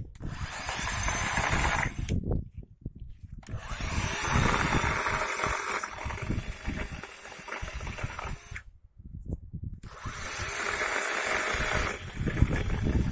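Parkside 20 V cordless chainsaw running in three bursts of about two, five and two seconds, with short pauses between.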